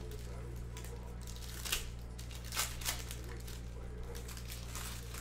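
Trading-card pack wrappers crinkling and tearing as packs are opened and cards handled, in short sharp bursts, three of them close together in the second half.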